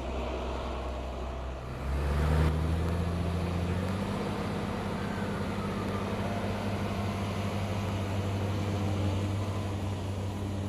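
Tractor engine driving a Welger variable-chamber round baler in the field. The engine's revs and loudness rise about two seconds in, then it runs steadily under load.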